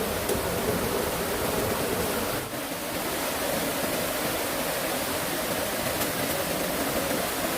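Steady rush of flowing stream water, an even noise with a brief dip about two and a half seconds in.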